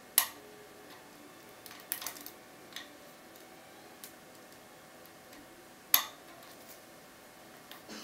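Small metallic clicks of a lock pick and tension wrench working in a brass euro-profile pin-tumbler cylinder. Two sharp clicks, one at the start and one about six seconds in, with fainter scattered ticks between.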